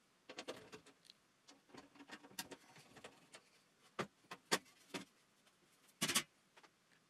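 Faint scattered clicks and knocks of hands handling a Tektronix Type 503 oscilloscope's case, with two sharper knocks about two-thirds of the way through and a short double knock near the end.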